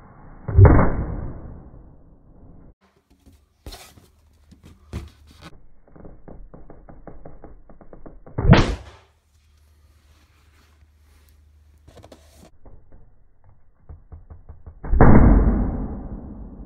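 Inflated rubber balloons bursting as a pen point is pushed into them: three loud bangs, about half a second in, midway and near the end, with faint taps and handling clicks between.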